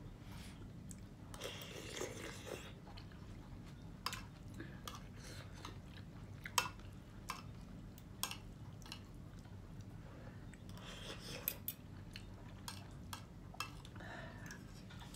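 Close-up eating sounds: chewing a mouthful of misua noodle soup with vegetables, with sharp clinks of a metal fork and spoon against the plate scattered throughout.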